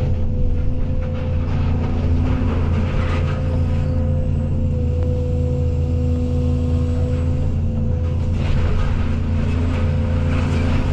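Case CX220E excavator's diesel engine running steadily with a constant high whine over it, and twice a spell of crackling and rattling on top as the machine works the barn.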